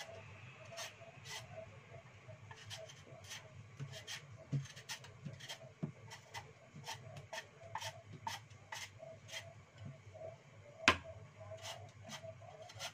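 Blunt kitchen knife scraping the skin off a lotus root: short rasping strokes at an irregular pace, one or two a second, with one much sharper knock near the end.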